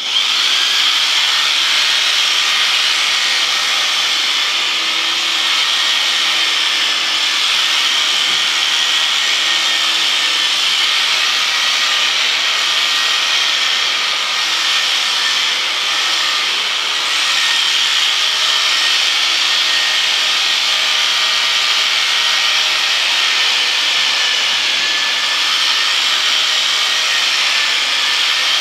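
Electric sheep shears running steadily as they cut through a ram's wool; the buzz comes on suddenly at the start and holds almost unchanged throughout.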